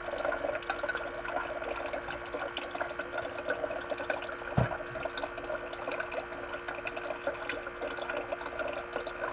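Electric water-bottle dispenser pump running with a steady hum, its spout streaming water into a metal saucepan. A single knock about halfway through.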